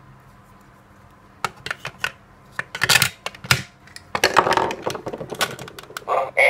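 Hard plastic clicks and knocks of a DX Kamen Rider Ixa belt toy being handled as an Ixa Fuestle is fitted into it. The louder clicks come about three seconds in, and in the last half second the belt's electronic sound starts as it lights up.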